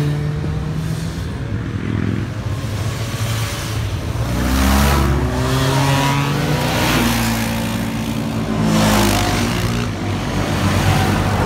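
Several motorcycles riding past one after another, engines revving, a louder one going by about every two seconds.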